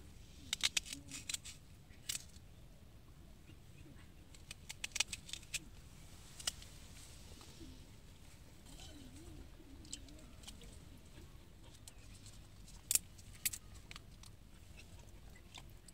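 Scattered sharp clicks and taps in small clusters, from a small knife cutting and peeling garlic and onion by hand, with pieces dropping into the pot, over a faint low rumble.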